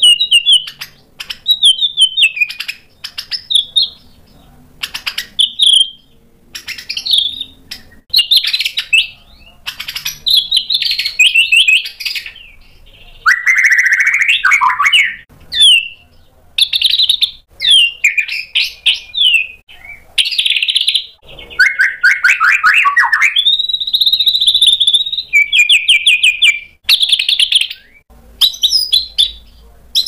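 Male white-rumped shama (murai batu) singing loud, varied phrases of whistles, rapid trills and chattering notes, each a second or two long with short pauses between. The bird is in full song, running through its repertoire of mimicked material (isian).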